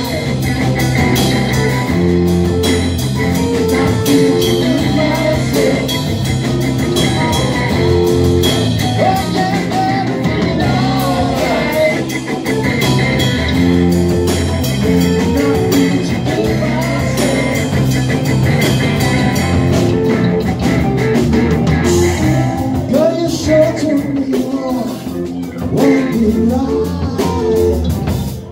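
Live rock band playing: electric guitars, bass guitar and a drum kit, with a lead vocal sung over them.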